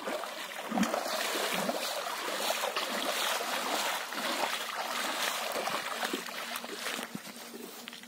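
Water splashing hard as fish thrash inside a hand-hauled mesh net closing in a shallow pond, mixed with the sloshing of the net and the men's arms in the water. The splashing starts about half a second in and dies down near the end.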